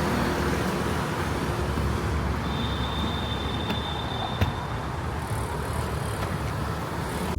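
Road traffic noise: a steady rumble of passing vehicles, with a thin high tone for about two seconds in the middle and a single sharp click just after it.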